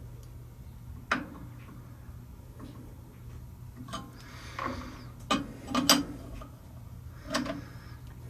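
Scattered metal clicks and knocks from setting up a part in a lathe's four-jaw chuck: about five sharp knocks spread over several seconds, the loudest a double knock about six seconds in, with a short scraping rustle just before. A steady low hum runs underneath.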